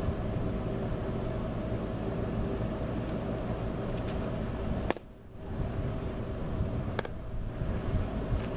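A baseball smacks into a catcher's mitt with a single sharp pop about five seconds in, followed by a fainter click about two seconds later, over a steady low rumble.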